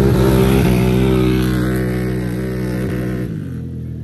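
Quad ATV engines at full throttle in a drag race, held at high revs with brief dips in pitch, then dropping about three seconds in and fading as the quads pull away down the strip.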